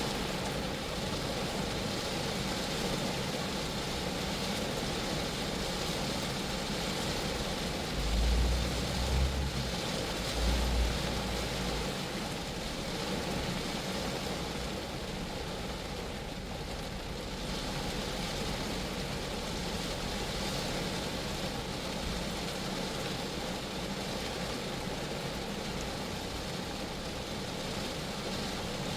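Steady rain falling on a Geo Metro car, an even patter on the body and glass. About eight seconds in, a low rumble swells three times over roughly three seconds.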